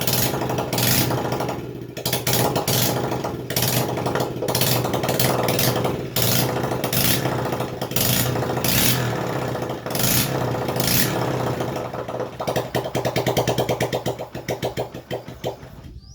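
Yamaha XTZ 125 single-cylinder motorcycle engine running, its sound surging about once a second. It carries the strange engine noise that the owner puts down to a loose magneto rotor, which sheared its key. The engine cuts off abruptly near the end.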